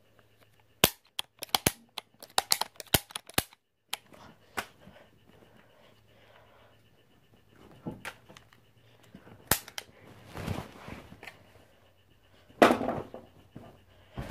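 Toy pistol snapping with sharp clicks, about ten in quick succession within the first few seconds, then a few single clicks spaced seconds apart. A louder rustling noise comes near the end.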